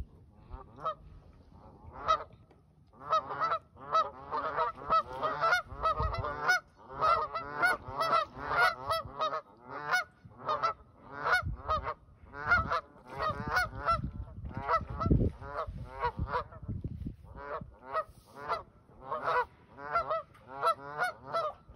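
Geese honking over and over, a few calls at first and then a dense, overlapping run of honks from about three seconds in, as they face off against a German Shepherd.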